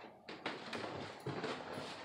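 Footsteps climbing bare wooden stairs: a run of irregular knocks on the wooden treads, several to the second.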